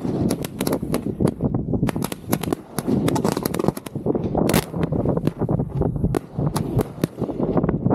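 Fireworks going off at close range, heard from inside the firing site: a rapid, unbroken barrage of launches and bursting shells, many sharp cracks over a heavy rumble, with one especially strong bang about halfway through.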